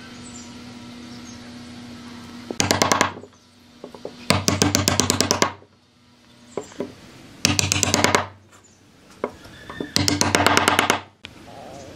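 A mallet rapidly hammering wooden uprights down into glued mortises in a wooden rail, in four bursts of quick, evenly spaced knocks, one for each upright.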